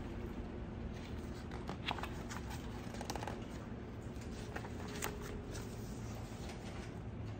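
Pages of a picture book being turned by hand: paper rustling, with a few short crisp clicks scattered through.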